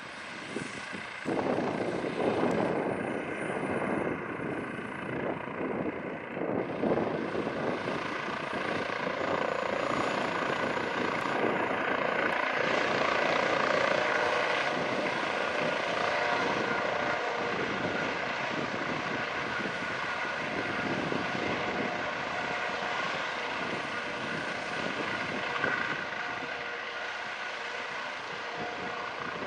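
Airbus Helicopters H155 (Eurocopter EC155 B1) running its two Turbomeca Arriel 2C2 turboshaft engines and rotors, a steady turbine whine over rotor noise. The sound grows louder about a second and a half in as power comes up for take-off.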